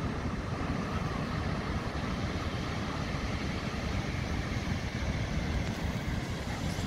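Steady outdoor beach noise: wind rumbling on the phone's microphone over the wash of the sea, with no distinct events.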